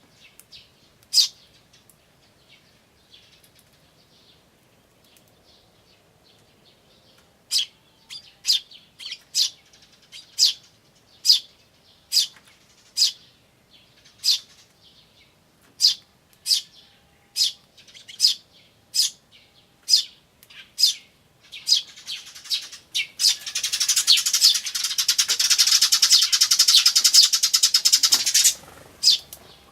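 Eurasian tree sparrows calling: sharp single chirps, sparse at first and then about one a second, followed near the end by a loud, rapid buzzy chatter lasting about six seconds.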